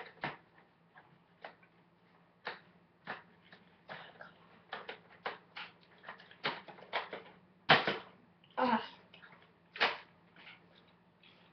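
Hard plastic parts of a Nerf Longstrike toy blaster clicking and knocking as its long barrel extension is handled and fitted on: irregular sharp ticks, a couple of dozen of them, the loudest pair a little past halfway. A faint steady low hum runs underneath.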